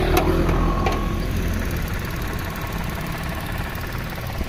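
Mitsubishi Mirage's 1.2-litre three-cylinder engine idling steadily, with a couple of short clicks in the first second as the bonnet catch is released and the bonnet lifted.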